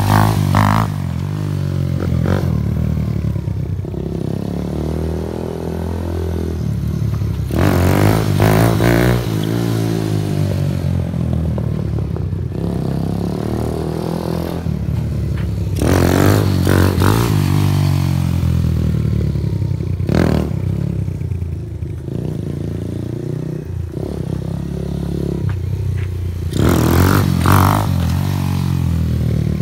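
TaoTao Hellcat 125cc single-cylinder motorcycle engine through a new aftermarket exhaust, revved hard and accelerating in four loud bursts several seconds apart, its pitch falling back between them.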